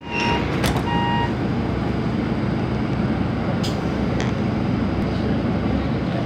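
Two short electronic beeps in the first second or so, then a steady low rumble and hum inside a Scomi monorail car, with a few faint clicks.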